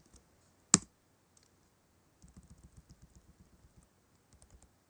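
Typing on a computer keyboard: one sharp, loud click about three quarters of a second in, then runs of quick, light key taps about halfway through and again near the end.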